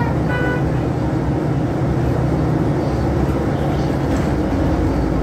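City bus engine and cabin noise heard from inside the bus as it climbs a hill: a steady low rumble, with a couple of brief high tones in the first half second.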